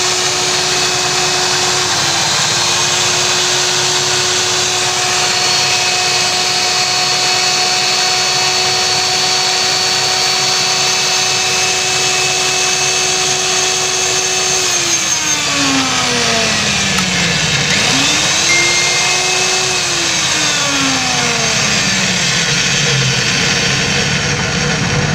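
Electric circular saw's universal motor running steadily, presumably on a test run after its broken carbon-brush connector wire was repaired. About fifteen seconds in, its pitch drops, rises briefly and drops again.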